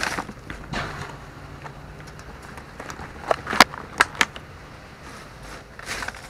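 Plastic trash bags rustling and crinkling as they are handled, with a few sharp clicks or knocks between about three and four seconds in.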